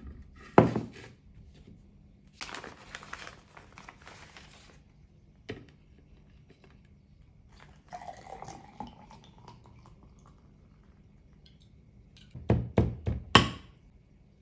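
Tableware being set down on a table: a sharp knock of a glass or plate, a stretch of rustling, then a dark drink poured from a bottle into a glass with a tone that rises as the glass fills. Near the end come a quick run of four or five knocks as the bottle and a tin are handled on the table.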